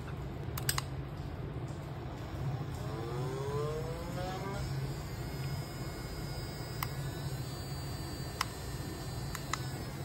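Small brushed DC motor pressed against a plastic controller case, buzzing as it runs under PWM speed control. About three seconds in, its pitch rises for a couple of seconds as the controller's slow start ramps the speed up. A few sharp clicks from the remote's buttons sound near the start and in the second half.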